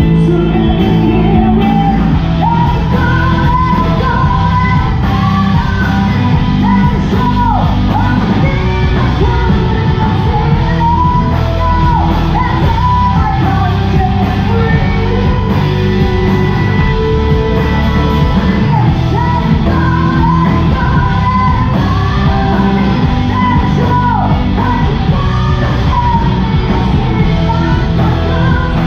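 Live rock band playing loud: a female lead singer over electric guitars, bass and drums, her vocal coming in about two seconds in and carrying on over the band.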